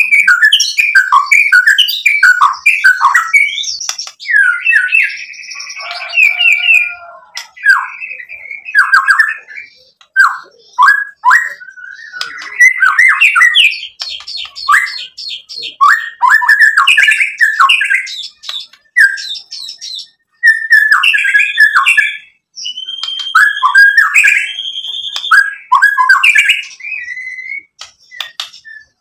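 White-rumped shama (murai batu) singing a loud, varied song of whistled phrases, rapid trills and sharp clicking notes, with a couple of short pauses.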